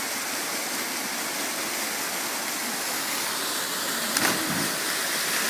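Waterfall pouring steadily: a continuous, even rush of falling water, with one short faint sound about four seconds in.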